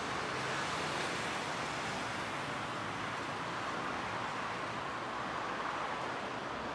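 Steady outdoor background noise: a continuous even wash with no distinct events, the kind of hum a city park beside a road carries.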